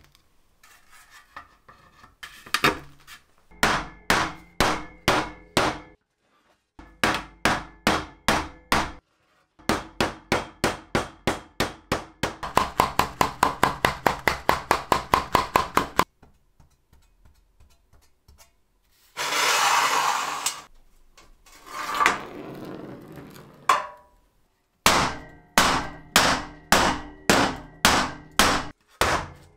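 Hammer and wooden mallet blows tapping particleboard pieces down onto and into a metal frame, in runs of quick strikes with short pauses. Partway through comes a fast run of about five strikes a second, and the metal underneath rings faintly through the blows. Around two-thirds of the way in, two brief scraping noises interrupt the tapping.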